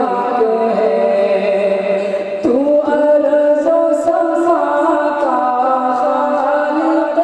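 A man singing an Urdu naat unaccompanied into a microphone, in long held melodic lines, with a brief break about two and a half seconds in before a new phrase begins.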